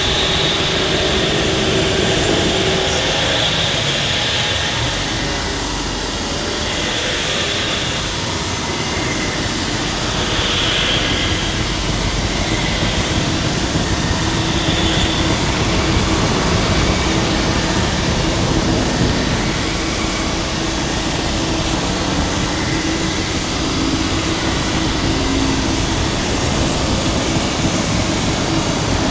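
Abstract experimental noise music: a dense, steady roar of noise with hissy swells that come and go, and a faint low hum that enters about halfway through.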